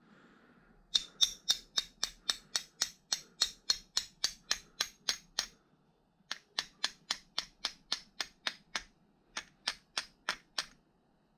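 Rapid, evenly spaced sharp clicks, about five a second, in three runs with short pauses between them.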